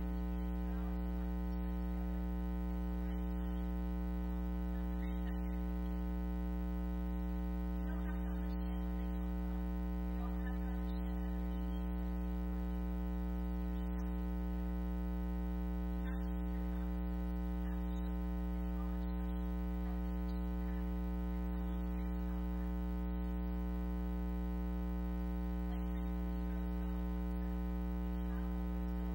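Steady electrical mains hum: a low buzz with many overtones that does not change and swamps the audio, with only faint traces of a voice beneath it.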